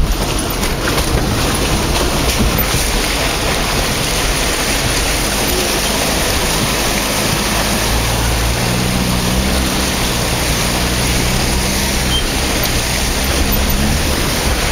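Vauxhall Frontera Sport driving over a rough off-road track, heard from inside the cabin: a steady loud rushing noise, with the engine's low hum coming up over it about halfway through.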